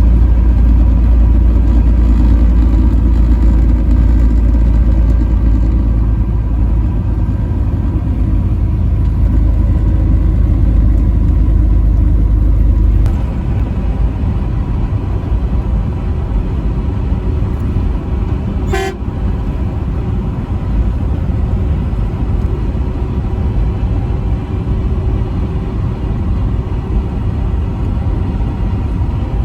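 Truck's engine and road noise, a steady low rumble while driving on the highway, dropping a little in loudness about thirteen seconds in. About two-thirds of the way through comes one brief, high-pitched toot.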